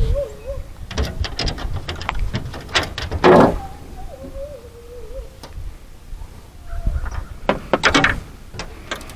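A dog whining in a high, wavering tone twice, with clusters of sharp knocks and clatters in between.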